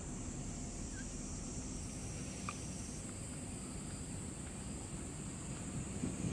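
Steady outdoor ambience under a gathering thunderstorm: insects chirring continuously in a high band that grows a little fuller about three seconds in, over a low, even background rumble. Two faint short chirps stand out, about one and two and a half seconds in.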